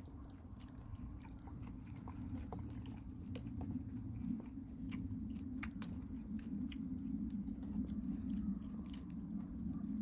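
Wood campfire burning: irregular sharp crackles and pops from the burning logs over a steady low rumble that grows slightly louder.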